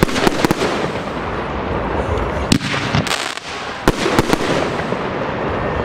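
Fireworks display: aerial shells bursting with sharp bangs, about ten of them in quick clusters, over a continuous rushing background of the show.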